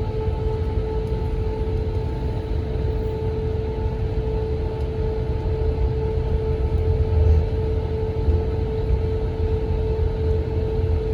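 Cabin noise inside an Airbus A321: a steady hum and two-note whine from the engines and air system over an uneven low rumble. The level holds steady throughout.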